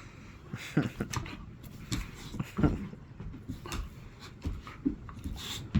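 Pit bull puppy at play, making irregular scuffs, taps and small thumps as it scrambles and mouths.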